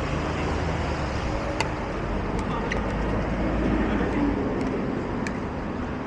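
Steady low rumble, its lowest part dropping away about four seconds in, with a few sharp hollow pops of pickleball paddles hitting the plastic ball on nearby courts.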